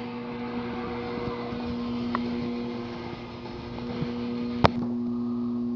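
A steady mechanical hum with an even low tone, and a single sharp click about four and a half seconds in, after which the hum's pitch pattern shifts.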